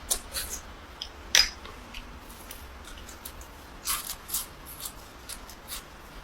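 Close-up eating sounds from a mouthful of mắm thái: scattered sharp, wet mouth clicks and smacks, the loudest about a second and a half in and a small cluster around four seconds in.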